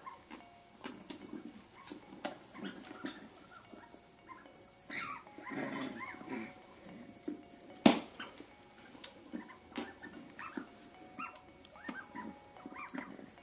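Shetland sheepdog puppy playing with a squeaky plush toy: short squeaks from the toy mixed with the puppy's small whines and yips, in clusters. One sharp knock about eight seconds in.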